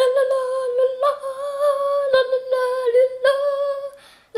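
A high voice humming a long note held at nearly one pitch, with a slight waver, broken into four stretches by short pauses.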